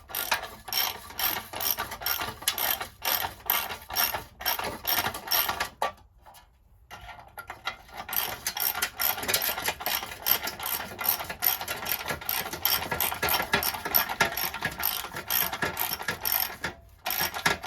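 Socket ratchet clicking as it works a nut on a VW Beetle's bumper iron bolt, in quick strokes of about three clicks a second. The clicking stops about six seconds in, then starts again faster and denser.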